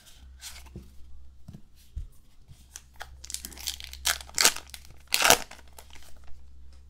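A baseball card pack's wrapper being torn open and peeled back by hand: a run of crinkly rips, the two loudest a little after four and five seconds in.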